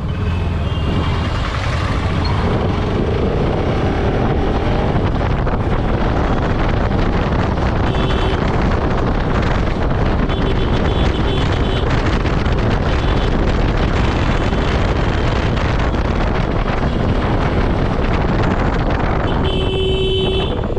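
Motorcycle ride heard from the rider's camera: steady rush of wind over the microphone mixed with the engine running at cruising speed. A horn beeps several times, briefly around the middle and longest and loudest near the end.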